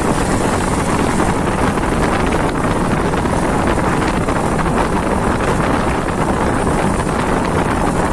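Steady wind rush on the microphone of a moving motorcycle, with the bike's small engine running beneath it at an even cruising speed.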